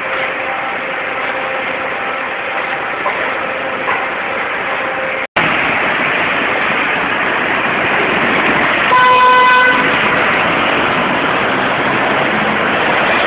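Steady street traffic noise, with a vehicle horn honking once, briefly, about nine seconds in. The sound cuts out for an instant about five seconds in.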